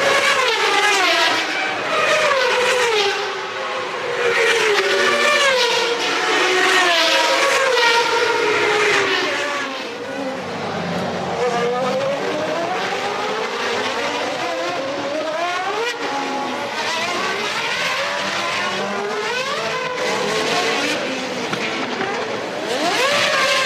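Several 1993 Formula One racing cars at high revs, their engine notes falling in pitch over and over as they brake or pass, with one note dipping and climbing again about halfway through.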